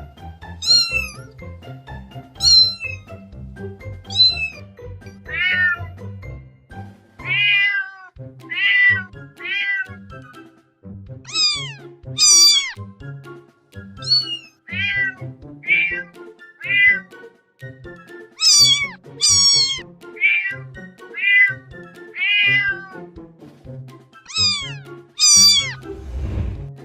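Kitten meowing over and over: about twenty short, high-pitched meows that fall in pitch, one every second or two, with background music underneath.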